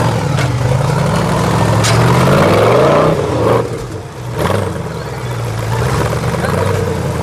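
Rock-crawler off-road buggy's engine revving as it crawls over boulders. The pitch climbs for about two seconds, falls back about three seconds in, and rises again briefly near the middle.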